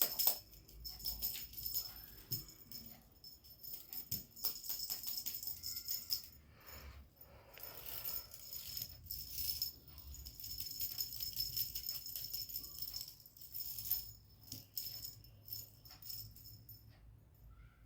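Faint, scattered jingling and rattling clicks that come and go.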